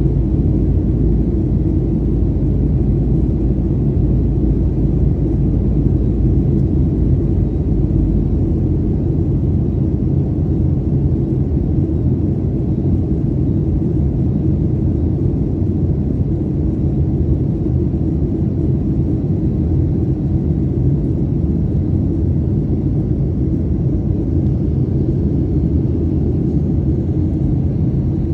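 Cabin noise inside a Boeing 737 on approach: a steady low rumble of engines and airflow. The deepest part of the rumble eases slightly about nine seconds in.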